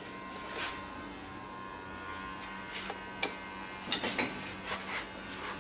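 A few sharp metallic clicks and clinks of a socket wrench being fitted to and turned on the air-conditioning compressor's mounting bolt, bunched about four seconds in, over a faint steady hum.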